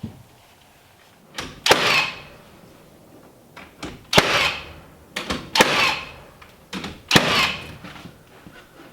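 Hammer blows on timber: four heavy strikes, each just after a lighter tap, with a short ringing decay after each.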